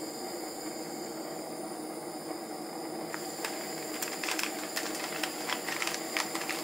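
Steady hiss from a pan of water and sliced onion heating on a gas burner, with a scatter of small clicks and crackles in the second half.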